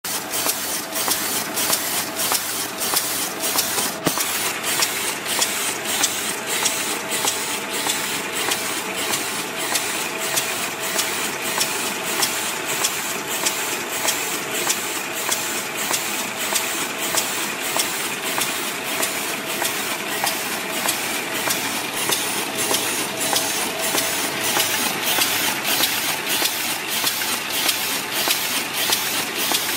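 Fully automatic small paper bag making machine running: a steady mechanical clatter with a sharp, regular clack two or three times a second over a steady hum.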